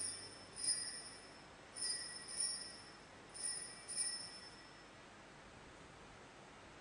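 Altar bells (Sanctus bells) rung in three quick double jingles, high and clear, each ringing out briefly. They mark the elevation of the host at the consecration.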